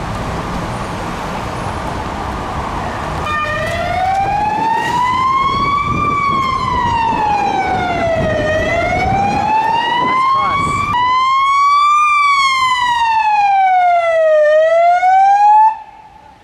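Wind and street noise, then about three seconds in an emergency vehicle's siren starts wailing, gliding slowly up and down in pitch with each rise and fall taking about five seconds. The siren is the loudest sound and cuts off suddenly near the end.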